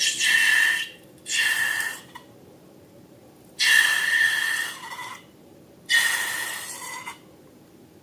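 Air rushing out of a balloon's neck in four short bursts, each a hiss with a squeaky whistling tone.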